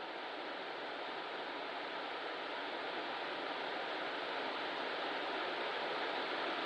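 Steady, even rushing noise that grows slightly louder, with a faint steady tone running underneath.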